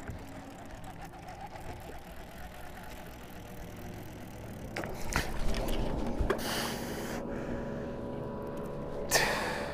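Steady motor hum on a boat, several even tones over a low haze of wind and water. A few sharp clicks come about five seconds in, and two short hissing rushes, one about six and a half seconds in and one near the end.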